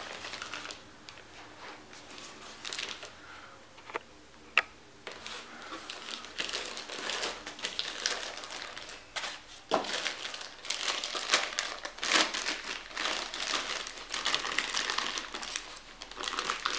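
Packaging crinkling and rustling as a boxed external hard drive is unpacked, with a couple of sharp clicks about four seconds in and busier crinkling from about five seconds on.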